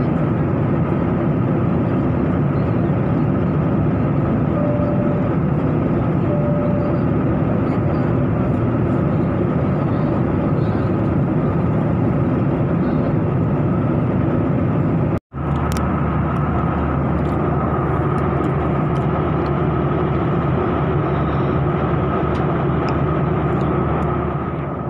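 Steady cabin noise of a jet airliner in cruise flight, the engines and rushing airflow heard from inside the cabin, with a steady hum over it. The sound cuts out for an instant about fifteen seconds in, then carries on.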